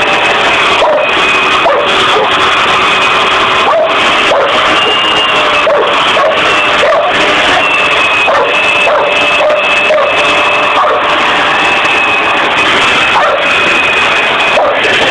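Vacuum cleaner running with a steady whine, while two dogs bark and yip at it in short calls scattered through.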